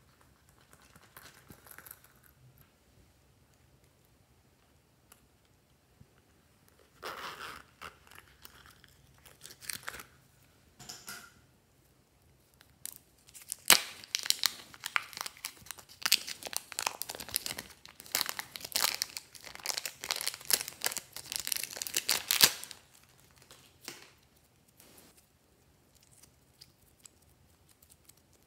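Small clear plastic packet crinkling and tearing as fingers pull it open, a dense crackling that lasts several seconds through the middle, after a few shorter rustles.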